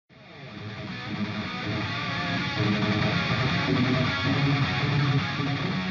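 Instrumental background music led by strummed guitar, fading in over the first second or two.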